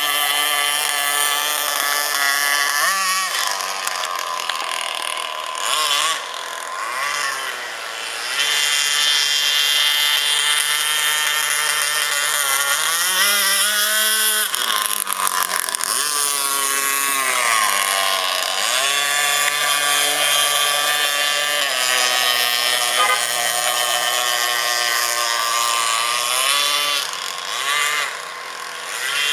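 26cc two-stroke petrol engine of a radio-controlled catamaran speedboat running at speed, with a buzzing, chainsaw-like sound. Its pitch rises and falls with the throttle and drops sharply several times, near the start, around the middle and near the end.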